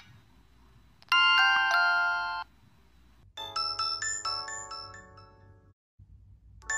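Samsung phone startup and shutdown jingles: a short held electronic chord that stops abruptly, then a run of bell-like chime notes that fades away. Another chime jingle begins near the end.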